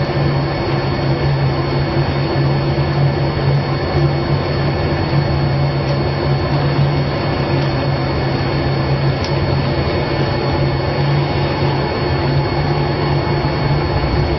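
A steady machine drone: a rushing, fan-like noise with a low hum, unchanging throughout.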